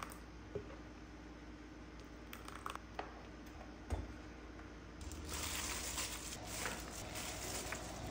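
Thick chili paste for kimchi squelching as a ladle stirs and lifts it in a bowl, with a few light clicks of the ladle against the bowl. About five seconds in the sound changes to a louder, steady rustle.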